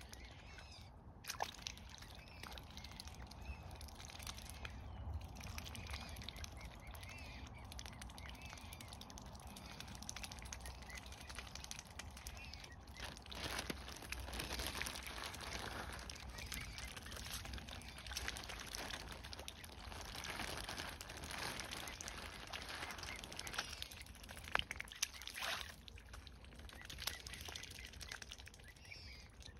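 Mute swans and their cygnets dabbling in the shallows: faint splashing and sloshing as they sift food from the water with their bills, busier in the second half.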